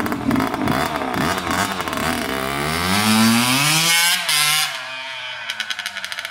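A 1983 Honda CR50's 50cc two-stroke engine catches from a bump start and revs up as the minibike is ridden away, its pitch climbing twice as it pulls through the gears, then fading with the distance. It breaks into a rapid crackle near the end, while the exhaust is coming loose; it fell off during this ride.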